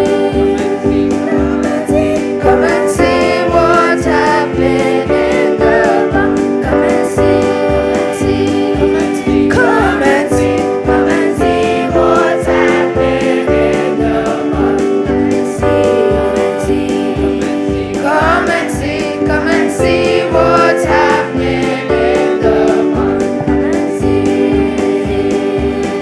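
Boys' choir singing, accompanied by an electronic keyboard, with a steady beat underneath.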